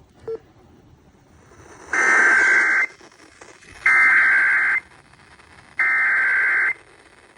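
Emergency Alert System SAME header: three bursts of raspy data tone, each a little under a second long with about a second between them, carrying the coded header of a child abduction emergency (Amber Alert). A short low beep sounds just before the first burst.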